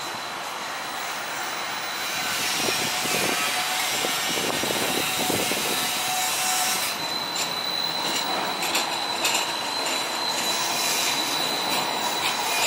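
Battery-electric Inekon Trio streetcar rounding a tight curve close by, its steel wheels squealing with a steady high whine, louder from about two seconds in as the car passes. In the second half a run of clicks comes from the wheels over the track.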